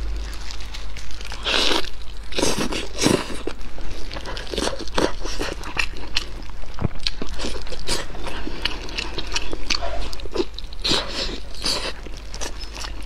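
Close-miked eating of braised pig tails: biting into the meat, tearing it apart and chewing, heard as a dense run of irregular clicks and crackles.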